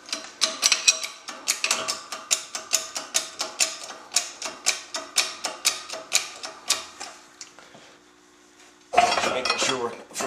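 Rapid metallic clicking with a light ring, about four clicks a second, from the shop press being worked to bring its ram down onto the spring-compressor tool over the overdrive unit. It stops about two-thirds of the way through, and a louder rustle starts near the end.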